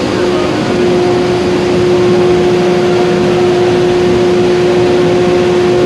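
Glass furnace's burner and blower running steadily: a loud, even roar with a constant hum over it.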